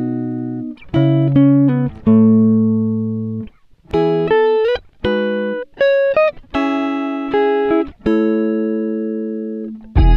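Background music: a melody of single notes and chords, each struck and left to fade, several sliding up in pitch.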